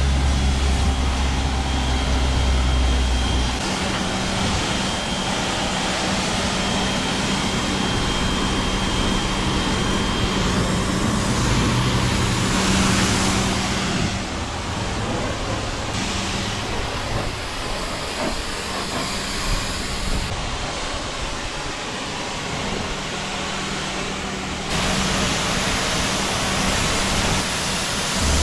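Pressure washer spraying a jet of water onto a boat hull, rinsing it down: a steady loud hiss of spray with the machine's hum underneath. The sound changes abruptly several times.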